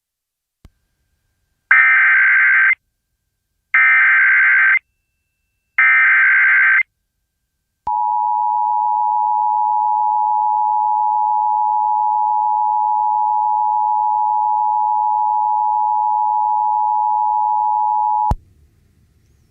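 Emergency Alert System activation tones: three roughly one-second bursts of SAME header data about two seconds apart, then the EAS attention signal, a steady two-tone alert (853 and 960 Hz) held for about ten seconds before it cuts off abruptly.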